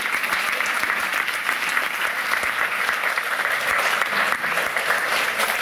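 Audience applauding steadily, the clapping of many hands.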